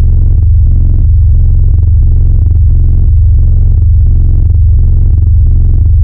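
Bass-boosted DJ sound-check music: a heavy, sustained bass line at near full level, with a beat about twice a second over it.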